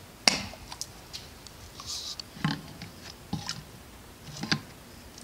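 Scattered clicks and knocks from a plastic bottle of coolant additive being handled and poured at a truck's open coolant surge tank, with a sharp click about a quarter second in.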